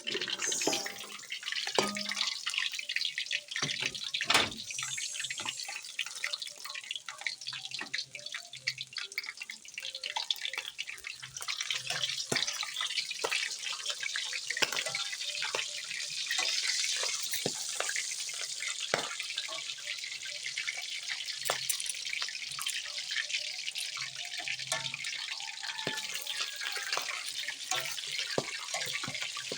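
Pork leg deep-frying in hot oil, sizzling steadily with many sharp crackles and pops as the skin crisps.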